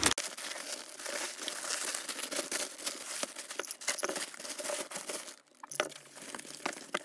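Plastic packaging crinkling and rustling as hands tear open a courier bag and pull out the plastic- and foam-wrapped contents. The rustling dies down briefly about five seconds in, then a few lighter rustles follow.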